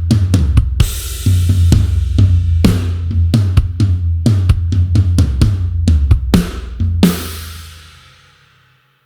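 Sampled rock drum kit (GetGood Drums One Kit Wonder Aggressive Rock) playing a hard groove of kick, snare, hi-hat and crash cymbals over a deep low sustained tone. About seven seconds in it stops on a final crash hit that rings out and fades away.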